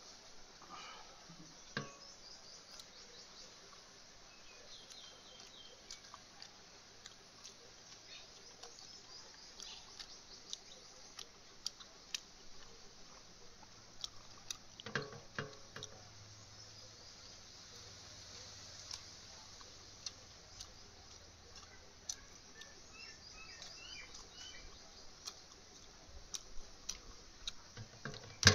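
Quiet outdoor background with scattered small clicks and ticks, a few short bird chirps, and one louder short sound about halfway through.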